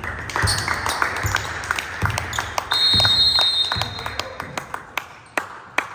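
Gym sounds during a basketball game: a ball bouncing in low thumps, sharp squeaks and clicks, and a crowd murmur, with a high whistle lasting about a second around three seconds in.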